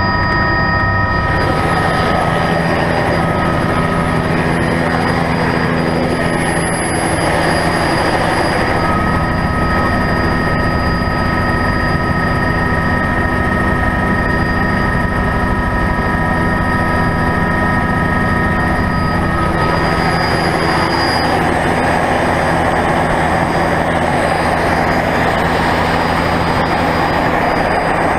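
Helicopter running: a steady high turbine whine over a dense low engine and rotor drone, with the whine's tones changing about two-thirds of the way through.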